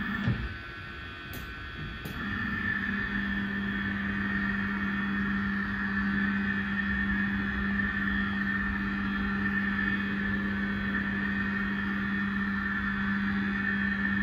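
Pan motor of a SOAR977 PTZ camera running as the head turns steadily round horizontally: a steady motor hum with a higher whine, which comes up to full strength about two seconds in.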